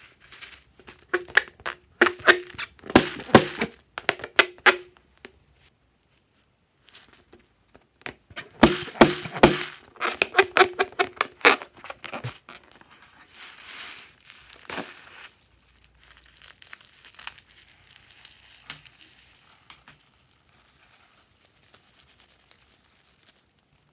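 Hands rubbing and squeezing a filled rubber balloon, giving two bouts of rapid rubbery squeaks. These are followed by a softer hiss and faint crackling as the cut balloon's glitter filling is squeezed out.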